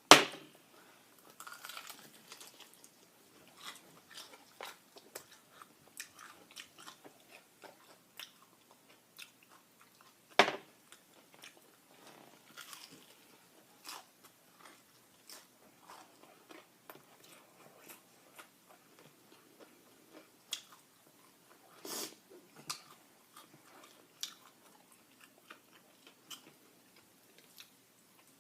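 Close-miked eating of Popeyes fried chicken: sharp crunching bites into the breaded crust, the loudest at the very start, about ten seconds in and about twenty-two seconds in, with chewing and small mouth clicks in between.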